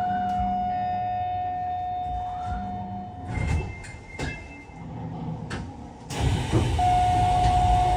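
Sliding doors of a stopped commuter train at a platform, with a steady electronic door warning tone that stops about three seconds in and sounds again near the end. Thuds and rumbling of the doors moving come in between.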